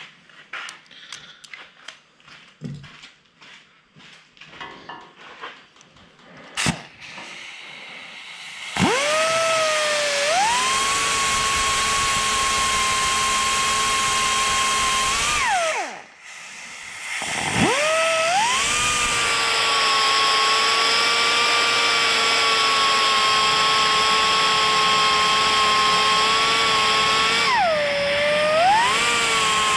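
Small clicks and knocks of handling, then an electric drill spins up and runs at a steady speed for about seven seconds, stops, and runs again for about twelve seconds, slowing briefly once near the end.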